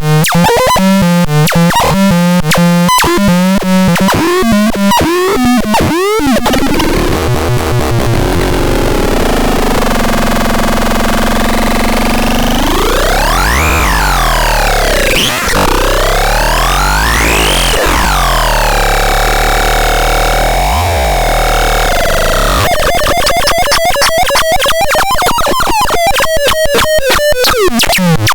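Electronic noise from a PAXDAX sound generator: rapid pulsing tones at first, then long sweeps rising and falling in pitch through the middle, and fast rhythmic pulsing again near the end.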